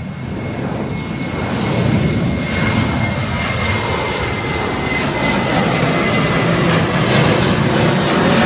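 Jet engines of a GOL Boeing 737 at go-around thrust as the airliner climbs away low overhead: loud engine noise building over the first two seconds and then holding, with a high fan whine that drops slightly in pitch.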